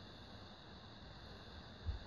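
Faint steady hiss with a single dull low thump near the end: handling noise from hands working at a car tire's valve stem while the inflator hose is hooked up.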